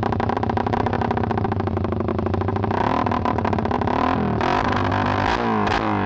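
Motorcycle with an aftermarket 'bulate' (thin worm-style) exhaust pipe idling with a fast, even firing beat. From about three seconds in it is revved, the pitch rising and falling in throttle blips.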